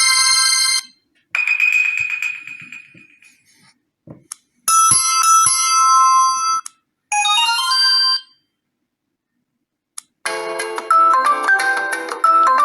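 Preset ringtones of an ASUS Zenfone Max M2 ZB633KL played one after another: several short electronic melody snippets, each cut off after a second or two, with faint clicks in the gaps, then a longer, busier chiming melody starting about ten seconds in.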